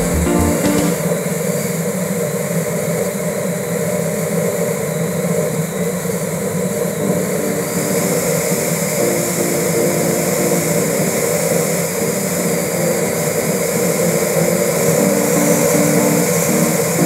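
Steady road and wind noise from a car driving on a paved road, heard from inside the vehicle, with background music faintly underneath.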